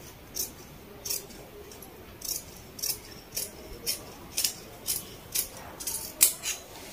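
Tailoring scissors snipping through layers of cotton lining fabric along a curved armhole cut. There are about a dozen short, crisp snips, roughly one every half second.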